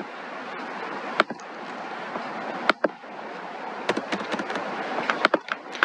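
Steady background hiss with several sharp clicks spread through it, roughly one every second or so.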